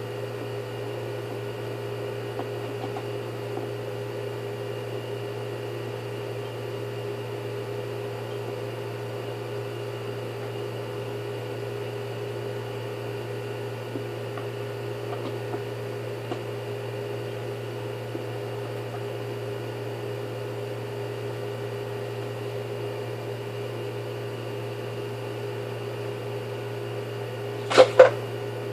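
Steady mechanical hum at an even level, with two sharp clicks in quick succession near the end.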